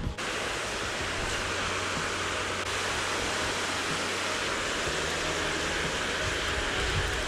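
Steady rush of water pouring over a concrete dam spillway wall into the pool below.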